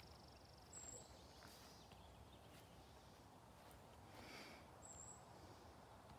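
Near silence: faint outdoor background with no distinct sound standing out.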